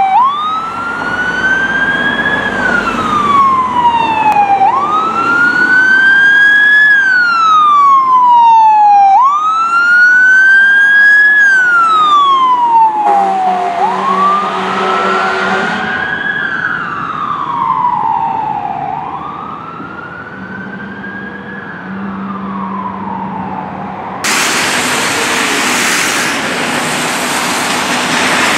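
Fire ladder truck's siren on wail: each cycle rises, then falls slowly, repeating about every four and a half seconds. About 24 seconds in the siren gives way to a loud, steady rushing noise.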